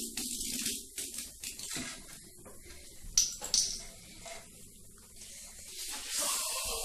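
Scattered clicks and knocks from a plastic cola bottle being handled, with a short hiss about three seconds in and more hiss near the end.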